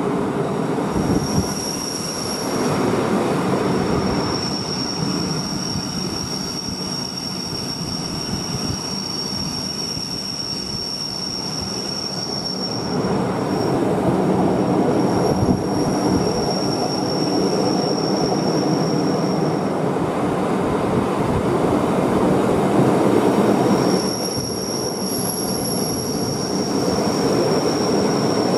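Rhaetian Railway electric train running down a steep, curving mountain line, its wheels rumbling on the rails. Over the rumble a high, steady squeal from the running gear comes and goes, fading out twice before setting in again near the end.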